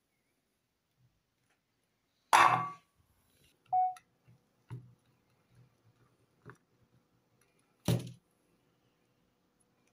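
Hands handling a bar of soap: scattered light taps and rustles, with a louder sharp handling noise about two and a half seconds in and another near the end, and a brief squeak around four seconds in.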